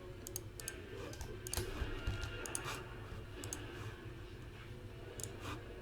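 Scattered light clicks of a computer keyboard and mouse, a few every second, over a steady low hum.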